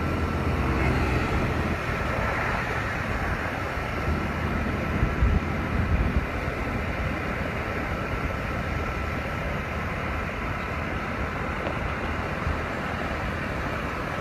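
Motor scooter riding noise in traffic: steady engine and road noise with wind on the microphone and a faint steady whine, and a few louder low thumps about five to six seconds in.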